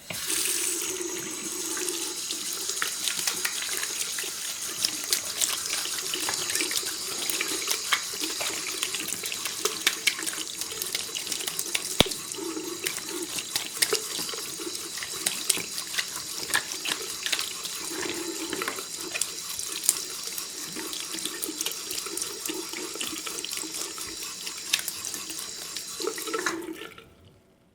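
Bathroom tap running into a sink while someone washes their hands, water splashing irregularly over the steady flow. The flow stops near the end.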